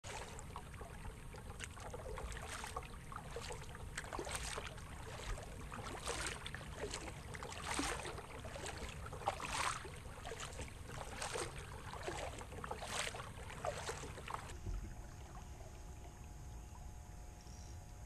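Kayak paddle strokes splashing in the water, roughly one a second, over a low rumble of wind on the microphone. About fourteen seconds in the splashing stops abruptly, leaving a quieter steady background.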